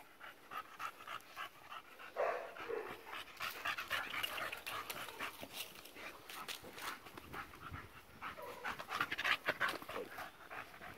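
A dog panting, a quick run of short breaths.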